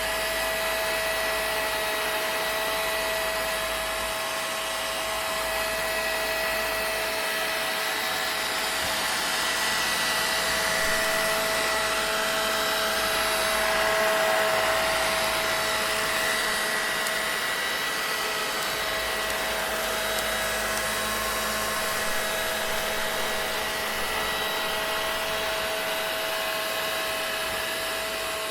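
Vacuum cleaner motor running steadily, a continuous rushing hiss with a constant high whine over it, swelling slightly about halfway through.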